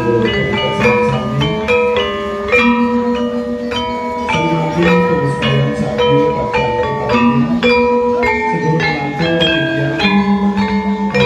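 Gamelan-style music: tuned mallet percussion plays a fast, steady pattern of ringing notes over a repeated low pulse.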